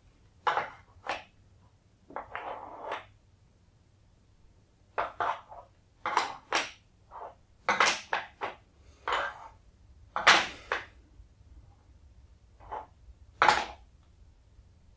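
Small wooden number tiles being picked up and set down one by one into a wooden insert frame: an irregular series of short wooden clacks and knocks, with one longer scraping sound about two seconds in.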